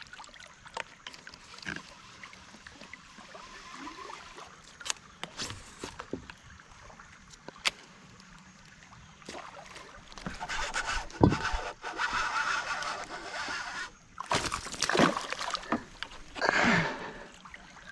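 Fishing reel being cranked for a few seconds about ten seconds in, then loud splashes of a hooked bass thrashing at the surface beside the kayak.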